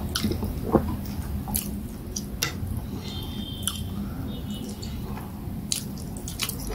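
Close-miked chewing of fufu with peanut soup, with scattered short wet clicks and squelches from the mouth and from fingers working the soft fufu and soup on the plate.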